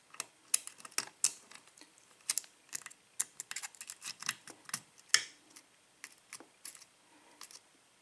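Lock pick working the pin stack of a 5-pin Ilco-Corbin lock cylinder: a run of small, irregular clicks as the pick lifts and sets the pins, thinning out after about five seconds.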